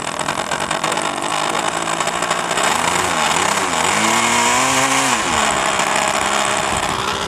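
Model airplane engine running loudly on the stand, its pitch wavering about three seconds in, then revving up and holding before dropping back a little after five seconds in.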